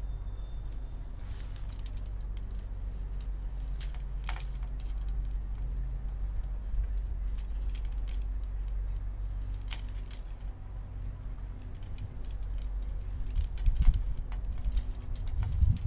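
Wind rumbling on the microphone, gusting louder near the end, with scattered light clicks and taps.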